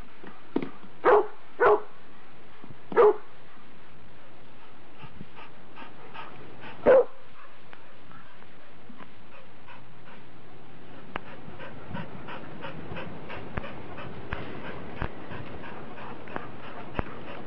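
A dog barking, about five short single barks spread over the first seven seconds. After that, from about eleven seconds in, there is a run of faint, quick clicks and ticks.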